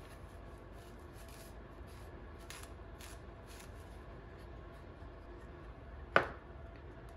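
Faint rustling and rubbing of a paper towel wiping excess wood glue off the edge of a small laser-cut plywood heart. About six seconds in comes a single sharp tap as the wooden piece is set down on the table.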